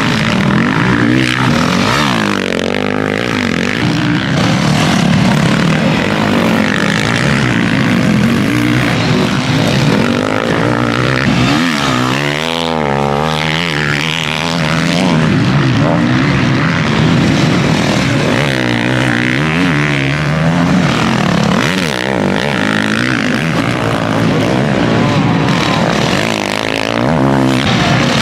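Several motocross bikes racing on the track, their engines revving up and down in overlapping rising and falling pitches. About halfway through, one bike's engine stands out, rising and falling.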